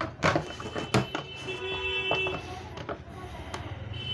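Pliers working a rusty nut and bolt on a plastic RO cabinet panel: a few sharp clicks and knocks of metal on metal and plastic in the first second. A steady high tone sounds in the background.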